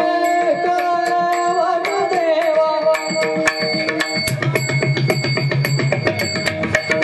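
Indian music: a held melody line that slides in pitch in places, over fast, dense drum strokes, with a low drum tone ringing for about two seconds past the middle.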